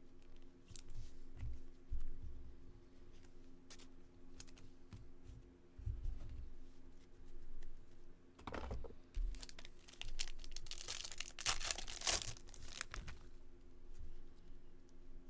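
Trading-card pack wrapper being torn open and crinkled, in a burst about eight and a half seconds in and a longer one from about ten and a half to thirteen seconds, with soft handling thumps before.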